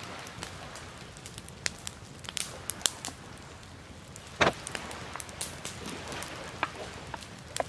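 A pot of fish curry cooking: irregular crackling and popping over a steady hiss, with one louder knock about four and a half seconds in.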